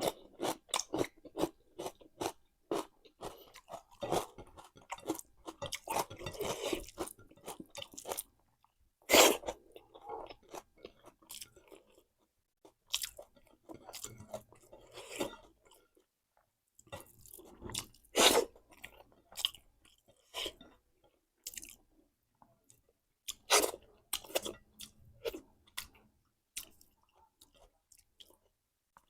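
A person chewing and crunching food with the mouth, with wet mouth clicks. The chewing comes in spells broken by short pauses, with a couple of sharper, louder clicks about nine and eighteen seconds in.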